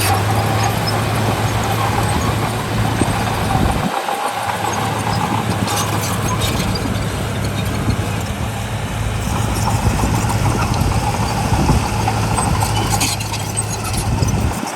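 Heavy diesel earthmoving machinery running steadily under load, a constant low engine drone with mechanical noise over it. The low drone drops out briefly about four seconds in, and a few light metallic clinks come through later.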